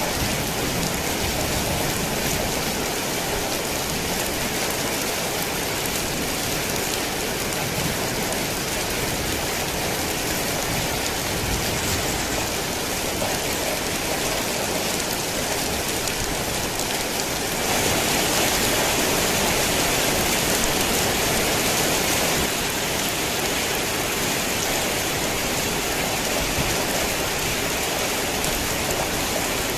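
Heavy rain falling steadily, a dense even hiss of drops. A little over halfway through it abruptly gets louder for about five seconds, then drops back to its earlier level.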